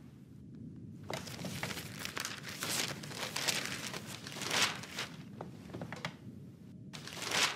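Newspaper rustling and crinkling as it is picked up and opened, in a run of crisp paper rustles starting about a second in, with a last rustle near the end.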